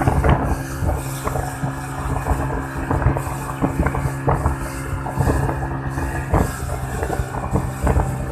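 Yamaha 200 hp outboard motor running steadily at high speed under towing load, with irregular thumps as the hull slams over the waves.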